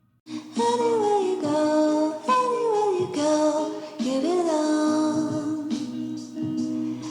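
Background music: a song with a woman singing over sustained accompaniment. It starts about a quarter second in, after a brief gap.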